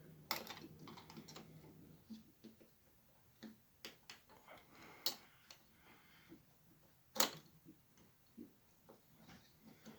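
Faint, scattered clicks and taps of small plastic and metal parts being handled and fitted on an HO scale model locomotive's chassis, as wheel contacts are worked back into place. The sharpest clicks come about a third of a second in, about five seconds in and just after seven seconds.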